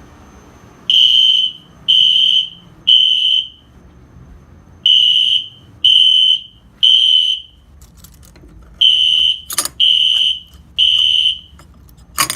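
System Sensor SpectrAlert Classic horn strobes sounding together in code 3 (temporal-3 evacuation pattern), kept in step by an MDL sync module. Each group is three short, high-pitched horn blasts followed by a pause, and the pattern repeats three times. A few sharp clicks come near the end.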